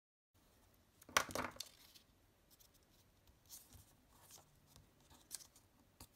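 Paper and cardstock being handled on a cutting mat: one short rustling scrape about a second in, then a few faint taps and rustles.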